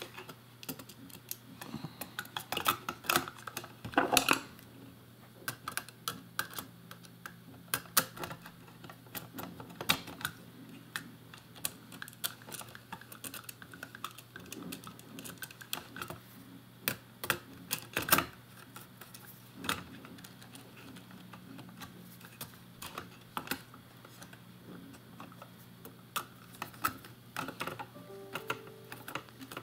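Irregular light clicks and taps of a small circuit board, wires and connectors being handled and pressed into a 3D-printed plastic box, a few sharper knocks among them, over a low steady hum.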